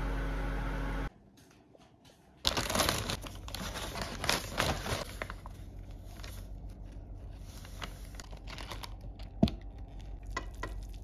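Briefly, a pot of water boiling with a steady hum, then a short hush. After that, a paper food wrapper and a cardboard takeaway box crinkle and rustle as they are handled, with one sharp knock about nine and a half seconds in.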